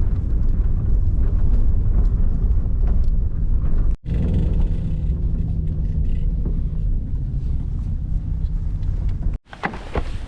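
Loud, steady low rumble, broken by two abrupt cuts about four and nine seconds in.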